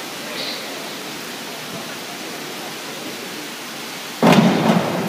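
Steady hiss of a large indoor pool hall, then, a little over four seconds in, a loud splash lasting under a second as springboard divers enter the water.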